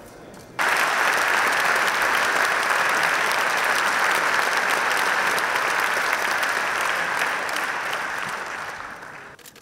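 Audience applauding steadily, starting suddenly about half a second in and dying away near the end.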